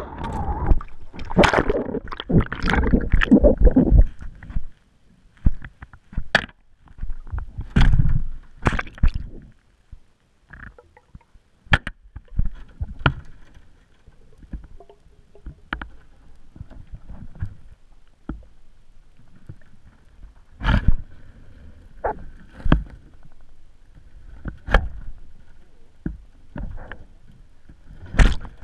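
Underwater sound picked up by a GoPro in its housing as it is lowered into dock water on a magnet-fishing rope: loud muffled splashing and rumbling as it goes in during the first few seconds, then a quieter stretch of scattered muffled knocks and clicks.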